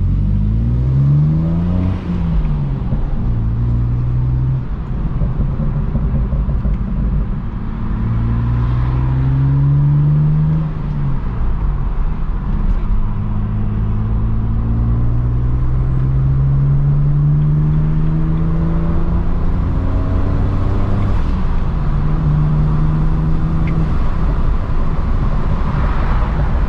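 BMW 335i's N54 twin-turbo inline-six pulling through the gears: the engine note climbs in pitch and drops back at each upshift, with one long slow climb in the middle. The driver suspects a vacuum leak that keeps it from full boost.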